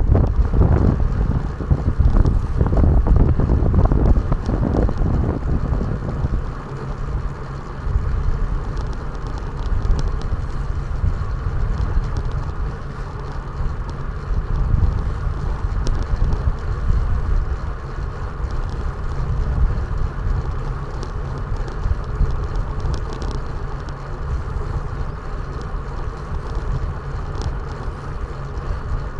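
Wind rushing over an action camera's microphone during a ride, a steady low rumble with road noise underneath. It is gustier in the first five seconds.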